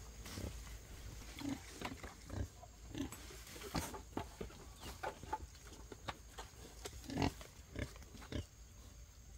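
Pigs giving short low grunts now and then, over sharp snaps and rustles of leafy vines being cut and pulled; the loudest grunt comes about seven seconds in.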